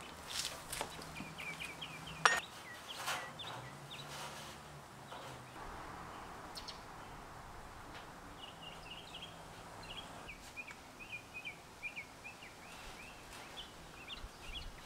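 Small birds chirping in quick, repeated short calls. In the first few seconds there are a few sharp clicks and knocks from handling a ratchet tie-down strap on the dirt bike; the loudest is a single sharp click about two seconds in.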